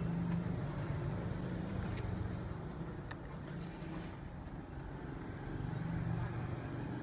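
Steady low background drone, with a few faint clicks as multimeter test leads and wires are handled on the bench.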